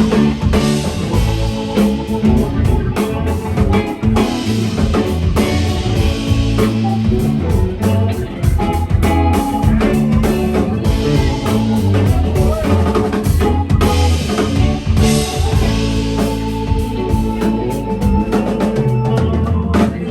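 Live rock band playing an instrumental jam: drum kit with a steady beat, guitar and a moving bass line.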